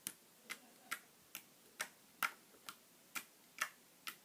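Slime being poked with a fingertip again and again, each poke giving a small sharp click or pop, about two a second at an even pace.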